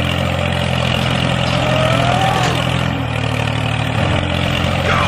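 Tractor engine running steadily at an even low pitch, with a short squeal that rises and falls about two seconds in.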